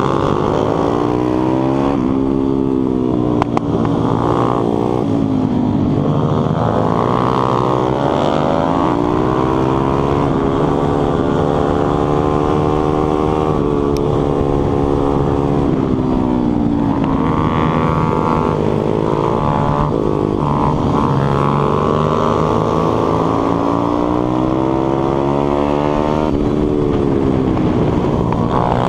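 Stomp 140 pit bike's single-cylinder four-stroke engine at racing speed, heard from on board. The engine pitch climbs hard over a few seconds, drops away, and climbs again, over and over, as the bike accelerates down the straights and backs off into the corners.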